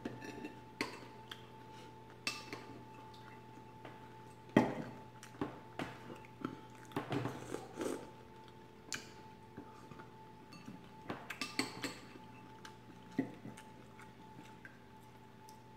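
Spoon clinking and scraping against a ceramic soup bowl while scooping chowder, with eating sounds in between; the sharpest knock comes a little under five seconds in.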